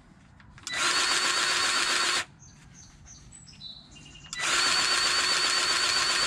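Two steady bursts of hissing spray, the first about a second and a half long and the second about two seconds, each carrying a faint high whistle.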